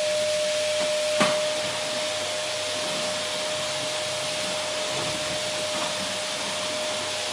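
Vacuum cleaner running steadily: an even rushing of air with a constant motor whine, and one brief knock about a second in.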